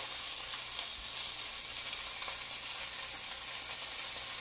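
Papio (young trevally) pan-frying in hot oil in a nonstick pan: a steady sizzle with light crackling.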